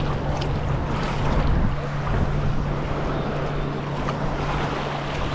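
Wind buffeting the action camera's microphone over the wash of small surf waves, with kayak paddle blades dipping and splashing. A steady low hum runs underneath.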